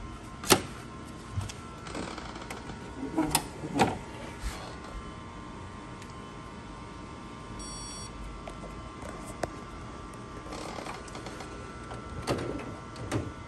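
Plastic clicks and knocks from the covers and printhead carriage latch of an HP DesignJet T120 printer being opened and handled, the sharpest about half a second in and a pair near the end. A steady hum with a few held tones runs underneath.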